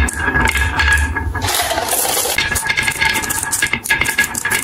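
Marbles dropped by hand onto a wooden HABA marble-run slope, rolling down its wavy grooves and clattering against the wood and each other as they pile up in a rapid, continuous rattle of clicks.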